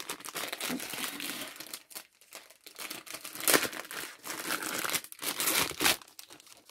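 Silvery anti-static plastic packaging bag crinkling as it is handled and opened, in uneven rustling bursts that are loudest about halfway through and again near the end.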